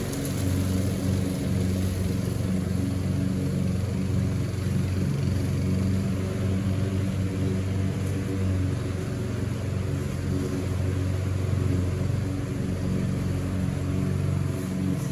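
Walk-behind gas lawn mower engine running steadily under load while mowing.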